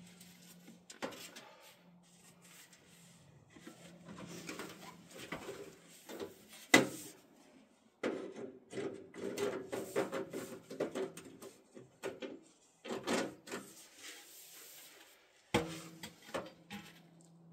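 Chimney pipe sections scraping and rattling as they are forced together, the new pipe resisting because it is out of round. A single sharp knock about seven seconds in is the loudest sound, with bursts of rattling after it.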